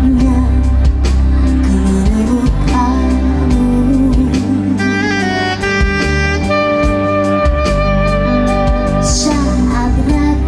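Live band music: a woman sings at first, then a soprano saxophone takes the melody with long held notes from about halfway, over keyboard accompaniment. The singing comes back near the end.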